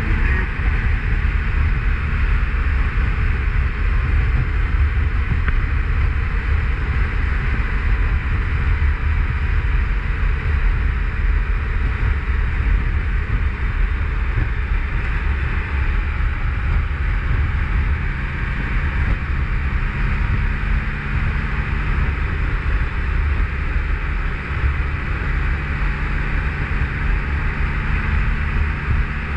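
Motorcycle riding at speed: the engine running steadily under a constant rush of wind over the microphone.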